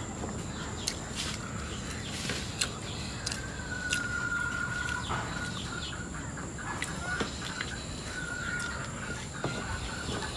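Village chickens calling in the background, with two drawn-out calls, one about three seconds in and another near the end, over scattered light clicks.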